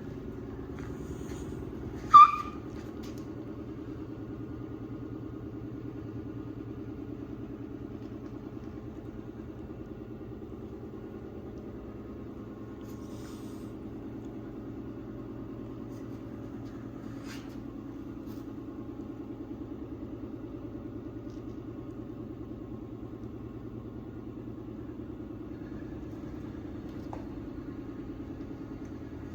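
Motorcycle engine running at a steady speed, with one short, sharp high-pitched squeak about two seconds in.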